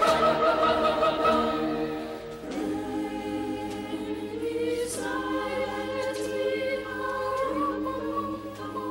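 Choir singing long held chords as a soundtrack, softening about two seconds in.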